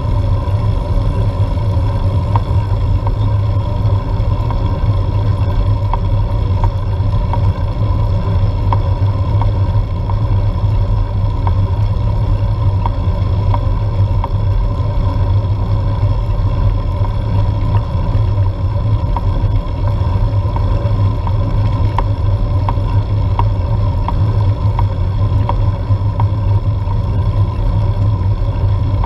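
Steady wind and road rumble picked up by an action camera mounted on a road bike being ridden up a climb, with a steady hum over it and faint scattered ticks.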